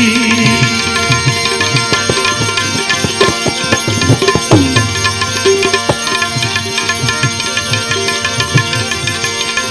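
Instrumental interlude of a Gujarati devotional bhajan: tabla playing a steady rhythm under held notes from a melody instrument, with one falling pitch bend on the bass drum about halfway through.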